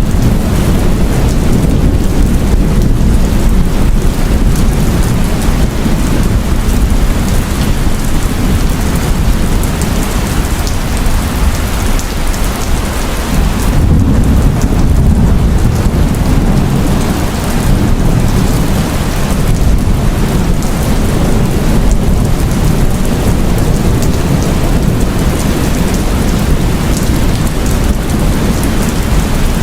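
Heavy rain falling steadily in a thunderstorm, with a deep continuous rumble of thunder beneath it that swells for a few seconds midway.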